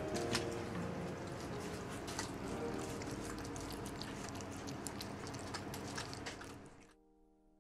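Tabby cat eating wet cat food from a dish close to the microphone: a steady run of small chewing clicks, which fades out near the end.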